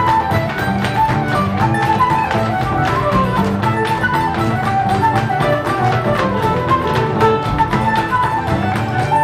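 Live traditional folk tune played by a small band on flute, fiddle and acoustic guitar, the flute and fiddle carrying the melody over a steady strummed beat.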